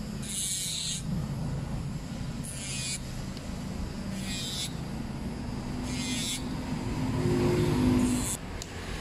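Electric nail drill running with a steady hum while its white bit grinds down an acrylic nail in short passes, each pass a brief high gritty hiss, five in all about a second and a half apart. The hum grows louder near the end.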